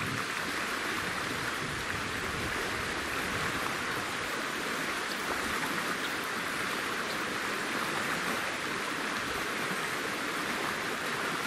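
Shallow river flowing over stones: a steady rush of running water.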